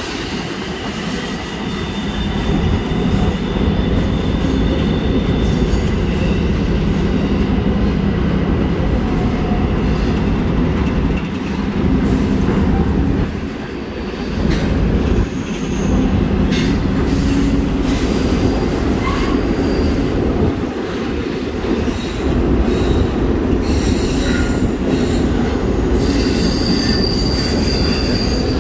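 Freight train cars rolling past with a steady rumble and wheels squealing in thin high tones that come and go, with a higher squeal near the end.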